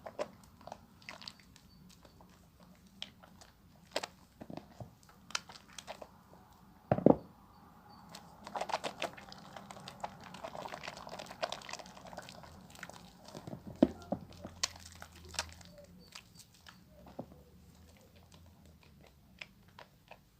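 Wet hands lathering a bar of creamy soap: soft squishing and crackling of foam with scattered sharp clicks, a denser crackly stretch in the middle, and a couple of louder knocks.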